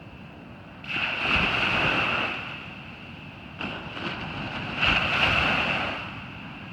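Ocean surf breaking on a beach. One wave crashes sharply about a second in and washes for over a second, then two more break at about three and a half and five seconds in, each dying away. A steady high-pitched hiss runs underneath.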